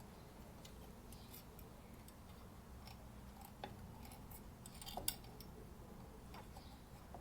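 Faint, scattered small metallic clicks and light scrapes from handling MG TD rear drum brake shoes and their return springs, with a sharper click about five seconds in.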